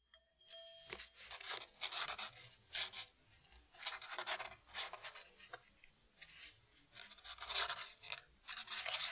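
Pen scratching on paper as someone writes by hand, in a run of short, irregular strokes.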